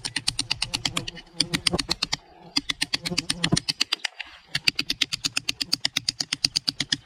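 Steel edge of a Mora Companion HD knife (Sandvik 12C27 stainless) scraped rapidly back and forth across the edge of a brick: about seven rasping strokes a second, in three runs with two short pauses. The edge is rolling over and being ruined by the stone.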